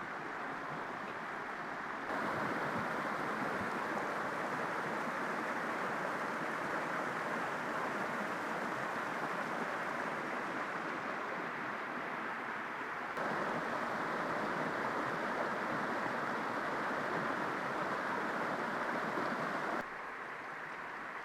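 Small mountain stream rushing over rocks, a steady wash of water that jumps louder about two seconds in and again about thirteen seconds in, then drops back suddenly near the end.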